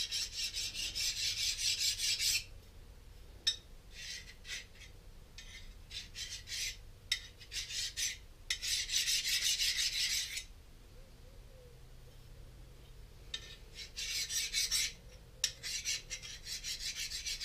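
Hand file rasping along a freshly heat-treated steel knife blade in quick repeated strokes, coming in runs, with a pause of about three seconds past the middle.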